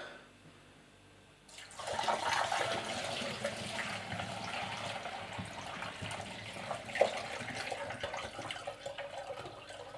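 Chilled wort poured from a stainless steel pot through a sieve and plastic funnel into a glass carboy, splashing into the water already inside. The pour starts about one and a half seconds in and runs steadily, easing a little later on as hop residue starts to clog the sieve, with a single sharp clink about seven seconds in.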